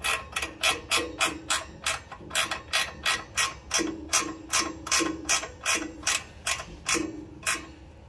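Small socket ratchet clicking in a steady run, about four clicks a second, as it tightens the fastener on a small engine's choke linkage. The clicking stops near the end.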